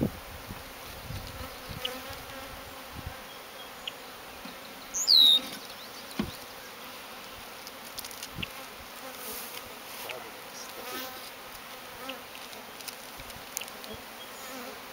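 Honeybees buzzing around an opened nuc box as its frames are lifted out, with scattered light knocks. About five seconds in comes one brief, loud, high-pitched squeak.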